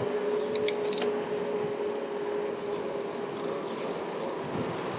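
Steady rushing noise of riding a bicycle along a street, with a single steady hum through most of it that fades near the end. A few light clicks come about a second in.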